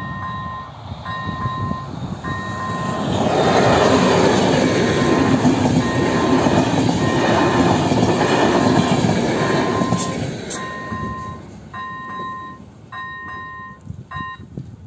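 Electronic level-crossing bell (AŽD 'Elektronický 01') ringing a repeating two-tone ding roughly once a second, while a passenger train of coaches runs over the crossing, loudest from about three seconds in to about ten. Two sharp clicks come as the train clears, and the bell rings on before stopping shortly before the end.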